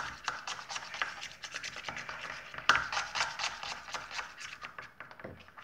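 Small spoon stirring school glue mixed with food colouring in a container, quick repeated scraping strokes against the sides, with one sharper knock about two and a half seconds in.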